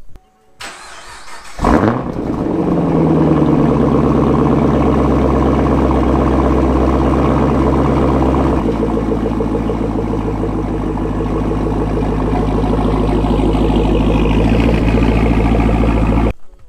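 Chevrolet Camaro's V8 starting about a second and a half in, flaring briefly, then settling into a steady idle through its quad exhaust. The idle note shifts about halfway through, and the sound stops abruptly near the end.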